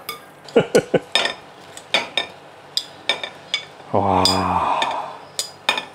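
A metal spoon clinking and scraping against a glass mixing bowl as dressed prawn salad is scooped out onto a ceramic plate: a string of separate sharp clinks. About four seconds in there is a short low steady hum.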